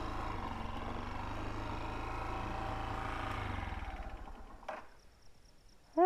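Hartford VR 150 motorcycle engine running steadily at idle, then dying away about four seconds in. A single sharp click follows, and after it faint insects chirp.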